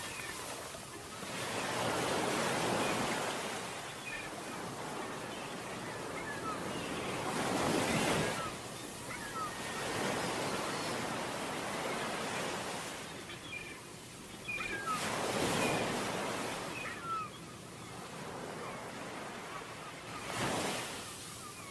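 Ocean waves breaking on a beach. The surf hisses steadily and swells into a louder wash every five to seven seconds.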